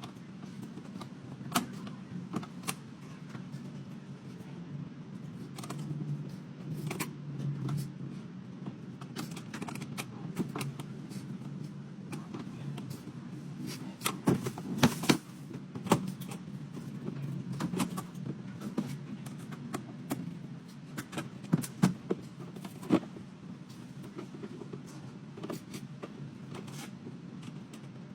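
Scattered clicks and knocks of a stand mixer's plastic cover and its screws being handled and screwed back in place, over a steady low hum. The knocks bunch together about halfway through and again a little later.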